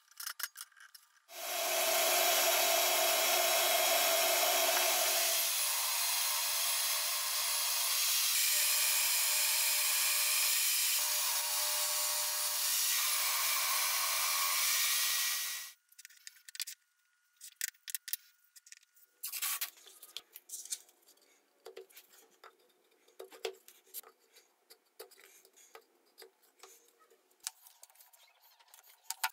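Jobsite table saw running and ripping a Douglas fir 2x4 on a bevel for about fourteen seconds, then cutting off suddenly. After that, light crackles and clicks of masking tape and wooden strips being handled.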